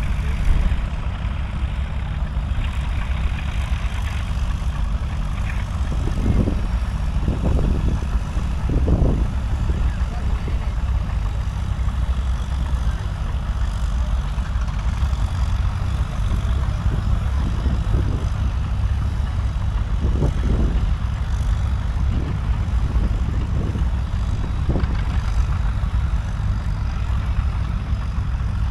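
Small pulling tractor's engine running hard under load as it drags a weight-transfer sled down the track: a steady drone with a few brief surges about six to nine seconds in and again around twenty seconds.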